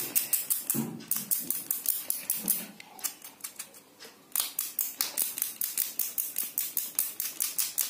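Rapid scraping strokes on the new soldering iron element's wire lead, about five a second, pausing briefly about three seconds in. The lead is being scraped clean of carbon and dirt so that solder will take.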